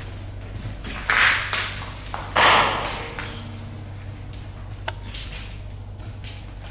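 Footsteps crunching on paint flakes and rubble on a corridor floor, with two louder crunching steps about one and two and a half seconds in and a few faint clicks of debris later, over a low steady hum.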